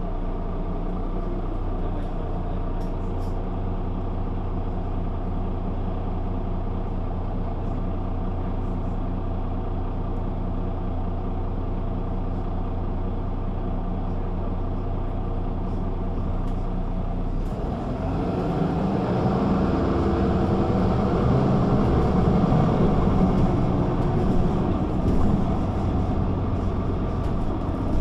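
Güleryüz Cobra GD 272 city bus's diesel engine idling steadily. A little past halfway it picks up revs and grows louder, the bus pulling away and accelerating.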